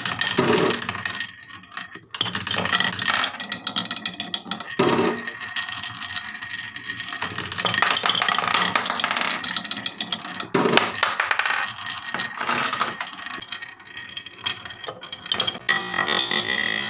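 Glass marbles rolling along a wooden wave-carved track, a rolling rumble that swells and fades with scattered clacks as the marbles knock against the wood and each other.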